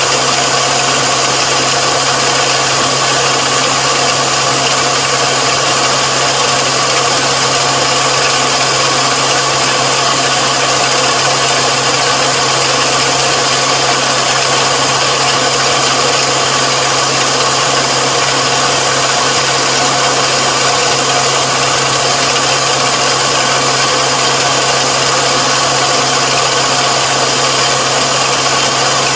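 Combine harvester's diesel engine running steadily at working speed, with a constant hum and a dense mechanical hiss that holds even throughout.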